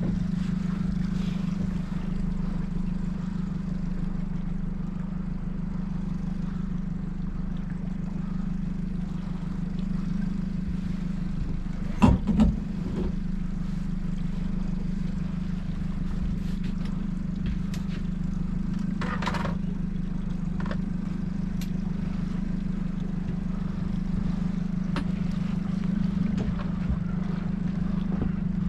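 A 60-horsepower outboard motor idling steadily in neutral, a low even hum. About twelve seconds in, a single sharp knock stands out above it.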